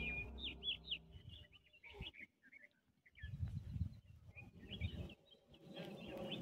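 Small birds chirping faintly, with short high calls scattered throughout. Background music fades out in the first second.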